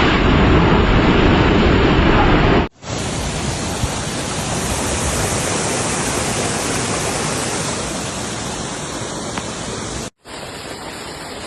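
Steady rushing of floodwater, heard as three separate stretches that each cut off abruptly, about two and a half seconds in and again near the end. The first stretch is heavier and deeper than the others.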